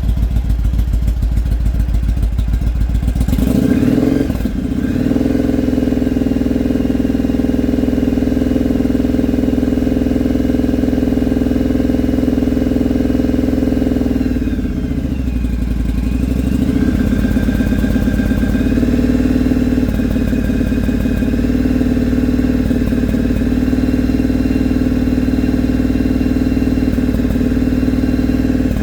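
Motorcycle engine with a 2-into-1 exhaust, high-flow filter and jet kit, running steadily with its revs changing about four seconds in and again around fifteen seconds in. The owner says it misfires since those parts went on and suspects the carburettors need adjusting.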